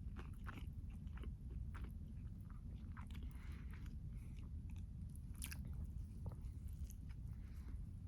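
A person chewing and biting food close to the microphone, giving irregular crunchy clicks over a low steady hum.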